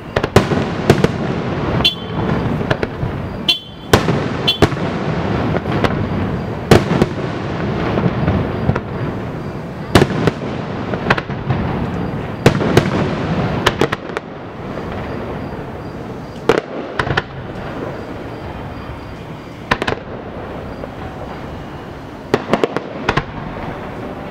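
Fireworks display: aerial shells bursting one after another at irregular intervals, sharp bangs over a continuous rumble. The bangs come thick and fast at first and more sparsely after about fourteen seconds.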